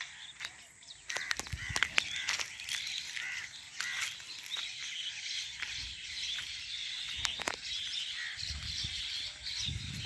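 A flock of small birds calling together, many overlapping chirps and harsh calls in a constant chatter. A low rumble joins in near the end.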